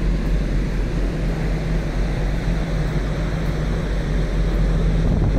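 Steady low hum of a Hankyu Ferry car ferry's engines and machinery heard on the open deck, under an even rush of wind and sea.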